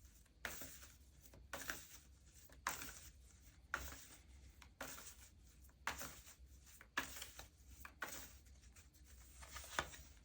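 A deck of tarot cards being shuffled by hand, a soft papery swish about once a second, repeated steadily.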